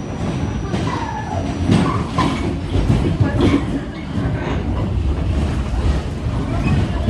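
R46 New York City subway car running along the track: a steady rumble of wheels on rail, with irregular clacks over rail joints and a brief wheel squeal about a second in.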